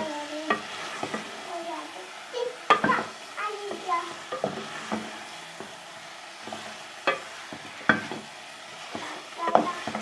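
Chicken pieces sizzling in oil and onion-tomato masala while being stirred and fried in a pot, with the spoon knocking and scraping against the pot several times.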